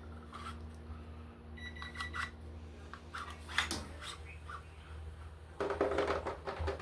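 Metal clicks and light clinks of Stevens 320 pump shotgun parts being handled and fitted back together during reassembly, with a brief ringing ping early on and a denser, louder run of rattling clicks near the end.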